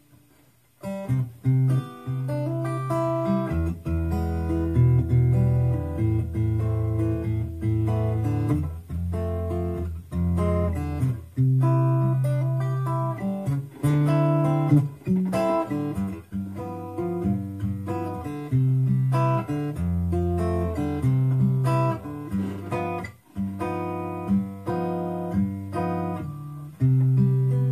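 Handmade acoustic guitar, amplified through an LR Baggs Anthem-SL pickup and a Crate acoustic amp, playing a fingerpicked tune. Low bass notes ring under higher plucked melody notes. The playing starts after a short pause about a second in.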